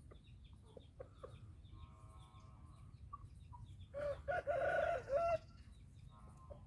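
Aseel rooster crowing once, starting about four seconds in and lasting about a second and a half. Fainter short calls and small bird chirps come before it.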